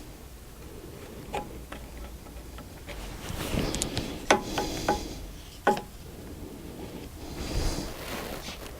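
Metal-on-metal hand work on a bench mill's Z-axis dovetail slide during gib adjustment: scattered light clicks and taps, two sharper ringing clinks in the middle, and stretches of scraping as the slide is moved.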